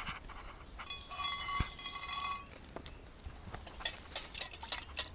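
A metal camp cooking pot being handled, giving a run of light clicks and clinks in the second half. Earlier, a steady high tone with overtones sounds for about a second and a half.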